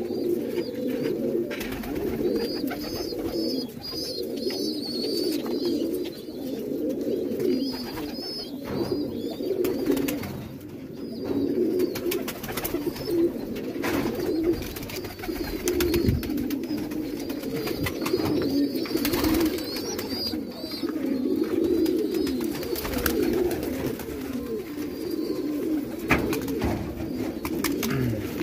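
A flock of domestic fancy pigeons (Rangdar and Bhatia breeds) cooing all together in an unbroken, overlapping chorus. Scattered high chirps and short clicks run through it.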